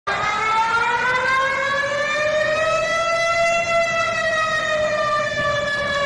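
Emergency alarm siren presented as Malaysia's: one long wail that rises in pitch over about three seconds and then slowly sinks, with many overtones.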